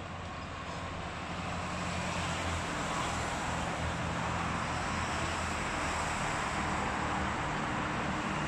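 Road traffic passing below: cars and motorcycles on a multi-lane road make a steady wash of engine and tyre noise. It grows louder over the first few seconds and then holds.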